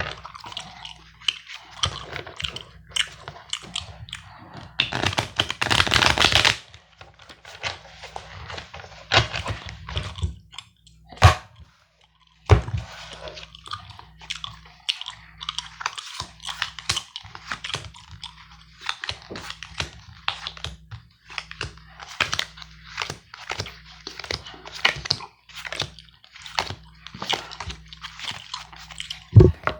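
Gum chewing, a run of moist, irregular clicks, with playing cards being handled: a longer rustling burst about five seconds in and two sharp taps around eleven and twelve seconds.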